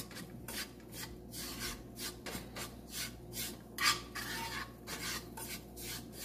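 Dry brown sugar being stirred and scraped around a nonstick frying pan with a spatula: a rasping scrape repeated about three strokes a second, as the sugar heats to caramelize.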